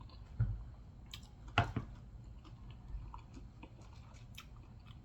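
Chewing a mouthful of nachos made with Doritos chips: scattered crunches and mouth sounds, the sharpest crunch about a second and a half in.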